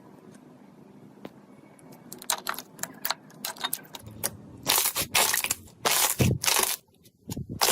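Slime being played with, making sharp crackling clicks that grow denser, then loud crunching squishes in the second half.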